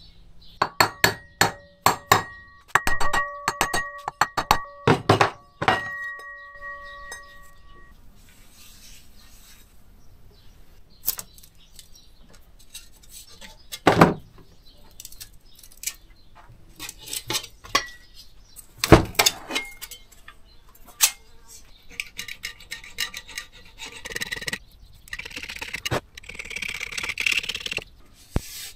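A hammer drives a sealed ball bearing into a cast-aluminium hub-motor cover, done by hand without a press. It makes a quick run of sharp metallic strikes with a ringing tone over the first six seconds. Scattered knocks follow as the parts are handled, and near the end comes the rub of a cloth wiping the motor's magnet ring.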